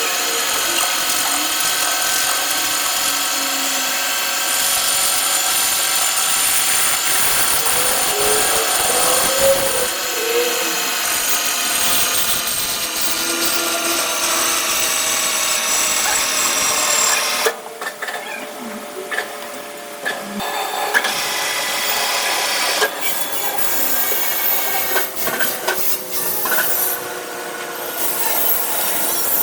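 CNC machine cutting metal: a steady, many-toned ringing whine from the cut. It breaks off about two-thirds of the way through, then resumes more quietly.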